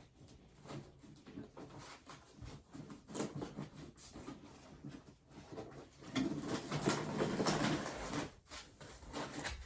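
Styrofoam packing and 3D printer parts being handled as the printer is unboxed: rustling and small knocks, with a louder stretch of rubbing and scraping about six seconds in.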